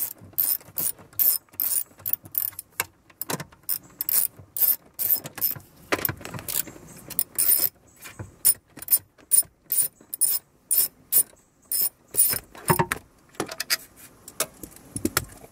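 Hand socket ratchet clicking in quick runs of about three to four clicks a second as the 10 mm bolts holding the metal crash pad under the dashboard are backed out. There are a few heavier knocks near the end as the metal pad is worked free.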